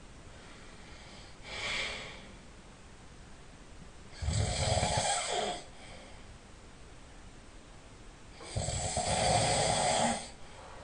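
A man snoring in his sleep: two long snores about four seconds apart, each lasting over a second, with a softer breath about two seconds in.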